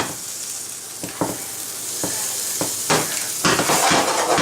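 Tortilla sandwich sizzling in a hot frying pan with butter substitute, the sizzle swelling louder over the second half. A spatula scrapes and taps in the pan several times.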